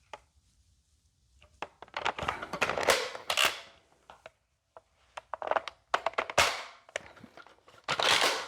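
Nerf blaster handling and shooting: clicks and knocks mixed with rustling, in three short clusters after a quiet first second or so, with one sharp knock about six seconds in.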